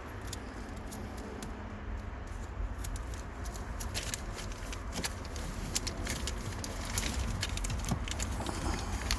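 Light scattered clicks and rustles of car wiring and connectors being handled, more frequent in the second half, over a steady low hum.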